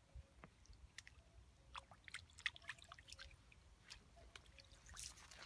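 Faint small splashes, drips and trickles of water as a small fish is let go by hand into shallow pond water. The loudest splash comes about halfway through.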